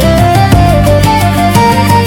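Music: a stepping melody line over plucked strings and a steady bass, with a regular beat.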